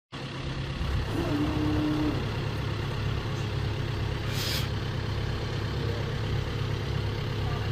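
CAT 299D3 compact track loader's diesel engine running steadily at idle. A short steady tone sounds about a second in, and a brief hiss comes about halfway through.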